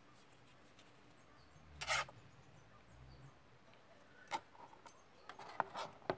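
Faint handling sounds of two fixed-blade knives: a short rub about two seconds in, then a few light taps and knocks as the knives are laid down on a mat near the end.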